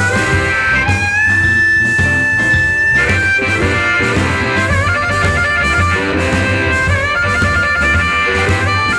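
Blues music: an instrumental break with a harmonica playing long held and bending notes over guitar and a steady bass beat.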